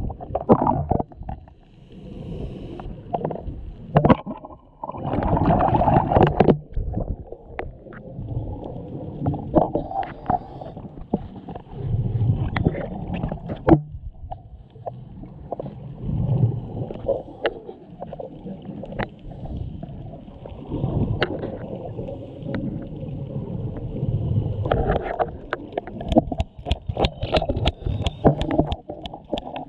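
Scuba diver's regulator breathing heard underwater: exhaled bubbles in low gurgling bursts about every four seconds, with a run of sharp clicks near the end.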